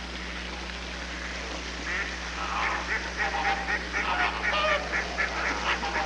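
A crowd of flamingos and mallard ducks calling: many short honks and quacks in quick succession, starting about two seconds in and growing busier, over a steady low hum.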